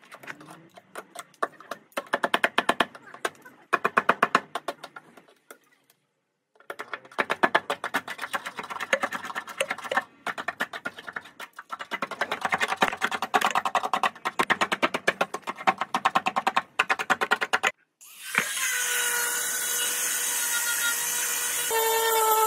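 A screwdriver scraping and prying rusted, blistered paint off a steel car body panel: fast scratchy clicking in several bursts with short pauses. About eighteen seconds in, an angle grinder starts and runs with a steady whine, its pitch changing near the end as the disc bites into the rusty metal.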